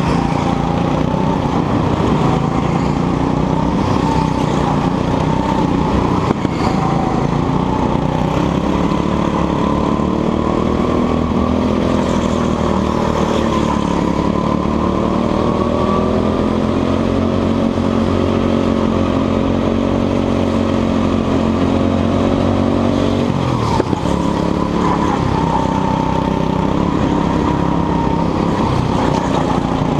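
Go-kart engine at full throttle, heard from the driver's seat. Its pitch climbs steadily for over ten seconds, which is the engine revving up along a straight. About three-quarters of the way through it drops abruptly as the throttle comes off for a corner, then it picks up again.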